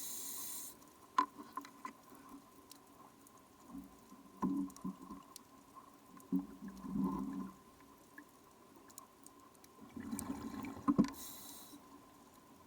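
Scuba diver breathing underwater through a regulator: a short hiss of drawn air at the start and again about eleven seconds in, and rumbling bursts of exhaled bubbles in between. Scattered faint clicks run through it.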